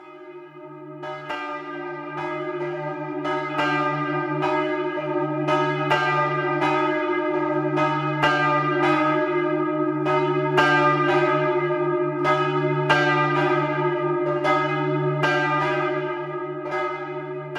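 Church bells ringing: a steady run of strokes, about two to three a second, over a lasting hum. The ringing swells in over the first couple of seconds and begins to fade near the end.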